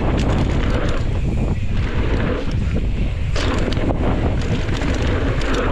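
Mountain bike descending a dirt singletrack at speed: wind rushing over the microphone, with the rumble of knobby tyres on the dirt and short rattles and knocks from the bike over bumps.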